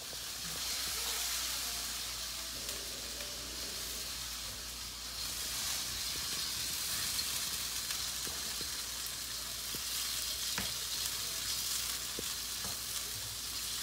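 Sliced chicken breast sizzling in hot oil in a wok, the sizzle growing louder about five seconds in. A wooden spatula stirring it gives a few light taps and scrapes against the pan.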